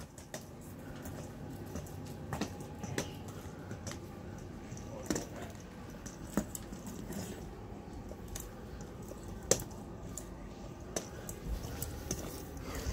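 Motorised rolling ball toy with a striped tail moving over the floor: scattered sharp clicks and knocks over a low steady hum.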